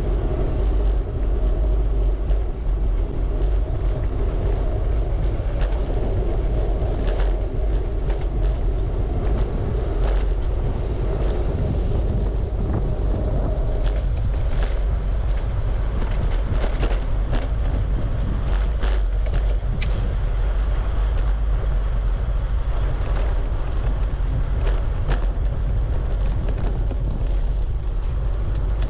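Steady rumble of wind buffeting the microphone of a camera on a moving bicycle, with short clicks and ticks scattered through it, more often in the second half.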